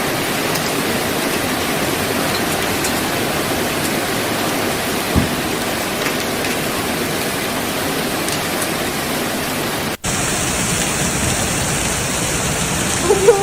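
Heavy hailstorm: a loud, steady hiss of rain and hail pouring down. There is a single dull thump about five seconds in, and near the ten-second mark the sound briefly cuts out and resumes with a slightly different hiss.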